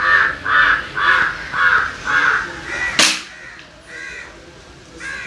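A crow cawing, six caws at about two a second, then a single sharp crack about three seconds in.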